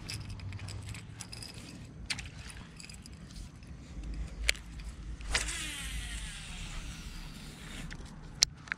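Baitcasting reel on a cast: a sharp click, then about three seconds of the spool whirring and falling in pitch as line pays out, and a click near the end as the reel is engaged.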